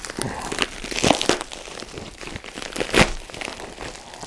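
Plastic poly mailer envelope crinkling and rustling as it is pulled and torn open by hand, in irregular crackles with a sharper, louder crackle about three seconds in.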